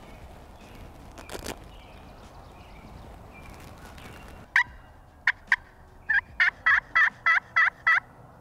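Turkey pot (friction) call yelping: a few single strokes about halfway in, then a run of about eight evenly spaced hen yelps, around three a second, near the end. There is a soft rustle of handling earlier.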